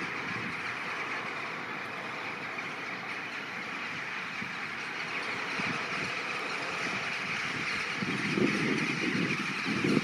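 Massed calling of a huge flock of corvids (rooks, jackdaws and crows), a continuous dense din of overlapping caws. A louder, lower sound swells in under it near the end.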